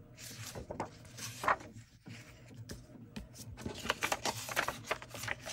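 Paper rustling and crinkling as a botanical book page is handled and pressed flat, with busier rustling in the second half.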